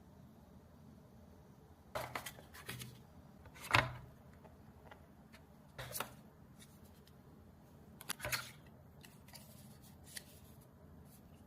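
Unboxing handling of a smartphone and its packaging: scattered short clicks, taps and rustles, the loudest a little under four seconds in, over quiet room tone.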